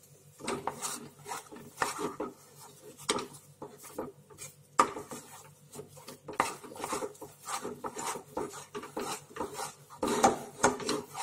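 Wooden spatula scraping and pressing thick rice-flour dough around a nonstick kadai in quick, irregular strokes. The dough is being cooked and worked until it comes away from the pan and no longer sticks.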